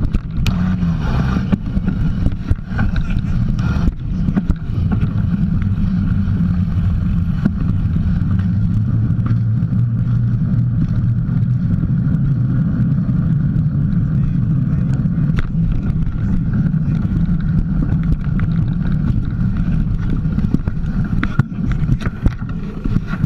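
Mountain bike riding over a bumpy dirt trail, heard from a camera mounted on the bike: a steady low rumble of wind buffeting the microphone and tyre noise, with frequent knocks and rattles from bumps.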